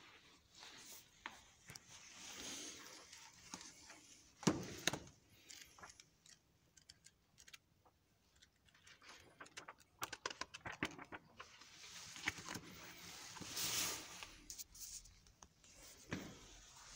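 Paper booklets being picked up, opened and flipped through, rustling, with scattered light clicks and knocks of handling; one sharper knock about four and a half seconds in.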